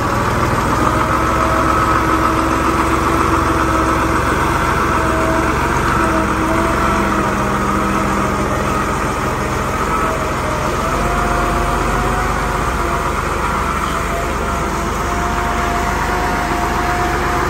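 Engine of the boatyard machinery hauling a canal boat out of the water, running steadily with a whine that wavers slightly in pitch.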